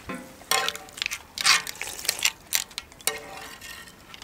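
People slurping ramen noodles and spicy seafood broth in several short, noisy slurps, with a few sharp clicks in between.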